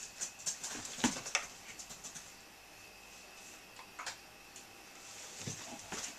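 Dry-erase marker on a whiteboard: scattered light clicks and taps as the marker is handled, with the tip scratching across the board as a letter is written.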